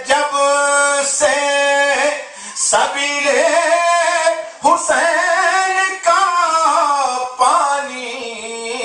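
A man's solo voice singing an unaccompanied Urdu devotional recitation (noha). He holds long, wavering notes that glide in pitch, with short breaks for breath.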